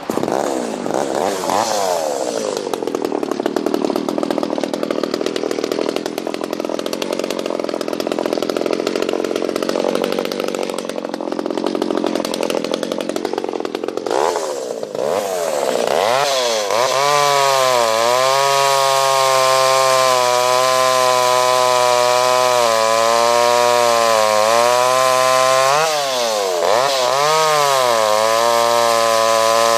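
Kioritz Echo CS-280E two-stroke chainsaw engine revving up and running at high speed. The first half sounds rougher and noisier. After a brief drop in speed midway, it settles into a steady high whine that dips momentarily a few times.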